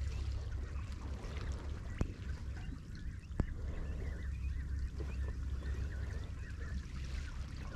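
Seawater sloshing and gurgling in the gaps between concrete tetrapods, over a steady low rumble of wind on the microphone. Two sharp clicks, about two seconds in and again about three and a half seconds in.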